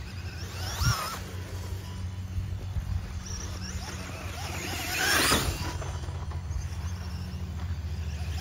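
Whine of a LOSI Pro Moto RC dirt bike's electric motor rising and falling in pitch as it laps with the throttle, loudest as it passes close about five seconds in, over a steady low hum.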